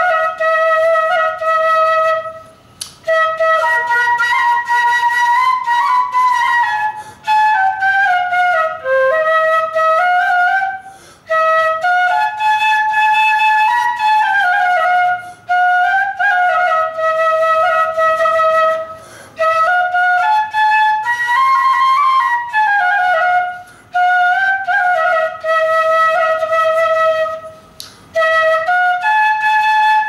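Solo bansuri, a bamboo transverse flute, playing a slow melody: long held notes joined by smooth slides in pitch, in phrases broken by short pauses every few seconds.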